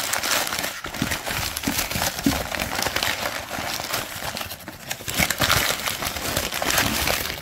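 Newspaper crinkling and rustling as it is unwrapped by hand, a continuous run of small crackles.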